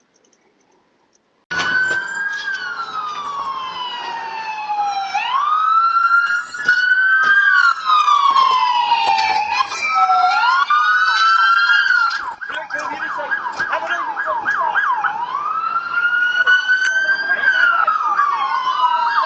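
Emergency-vehicle siren cutting in suddenly about a second and a half in, wailing slowly up and down every two to three seconds. Past the middle it switches for a couple of seconds to a rapid yelp, then goes back to the wail.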